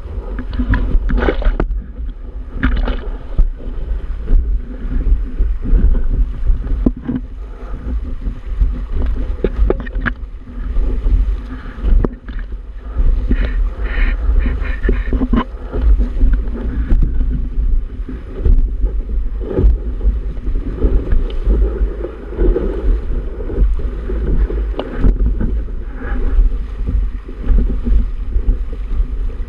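Wind buffeting the microphone in a heavy, continuous rumble, with water rushing and splashing against the hull of a Hobie Tandem Island sailing kayak under way, waves slapping it over and over.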